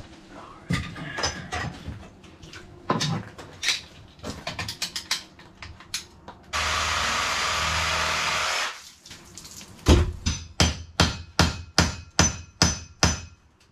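Hammer striking at a steel well casing: scattered knocks, then a steady hiss for about two seconds, then near the end a quick even run of about a dozen strikes, roughly three a second.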